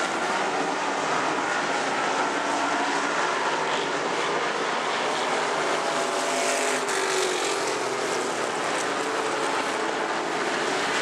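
Pure stock race cars racing on a dirt oval, their engines running hard at a steady loud level.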